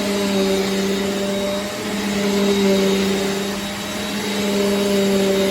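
Eureka NEU10AE4 AirSpeed bagless upright vacuum cleaner running, a steady motor hum over rushing air. Its loudness swells and eases a little as it works.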